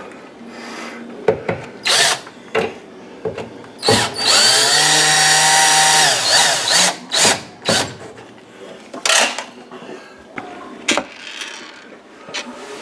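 Cordless drill driving a screw into an oven door's hinge bracket: one steady motor whine of about two seconds, starting about four seconds in. Sharp clicks and knocks of metal parts and the tool being handled come before and after it.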